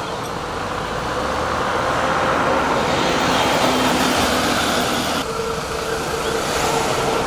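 A heavy vehicle's engine running steadily with a droning hum, its sound changing abruptly about five seconds in.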